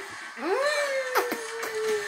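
A baby's long drawn-out vocal 'aah' that rises at the start, then is held and slowly sinks in pitch, with a couple of short clicks partway through.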